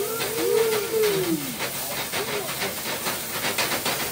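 Chicken pieces sizzling in a frying pan over a gas burner while the pan is flambéed, with a steady hiss and the repeated knocks and scrapes of a spatula stirring against the pan.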